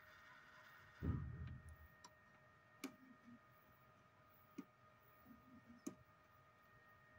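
Faint clicks from push-buttons on an FPGA board being pressed, four of them spread over several seconds, a couple followed by a brief low whir as the MG996R hobby servo steps. A low handling bump comes about a second in, and a faint steady whine runs underneath.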